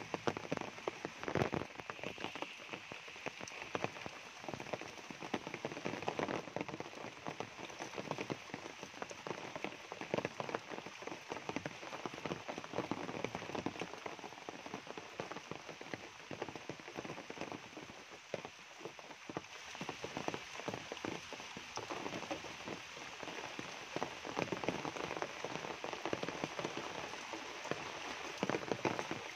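Steady rain falling on forest foliage and a muddy, waterlogged dirt path, a continuous hiss dotted with many close drop ticks.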